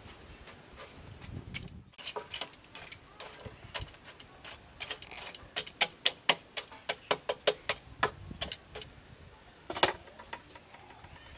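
Metal tongs knocking and scraping among burning charcoal lumps in a clay charcoal stove: a run of sharp clinks and taps, thickest in the middle, with one loud knock near the end.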